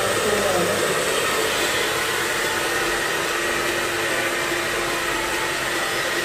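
Handheld hair dryer blowing steadily, an even rush of air with a faint steady whine.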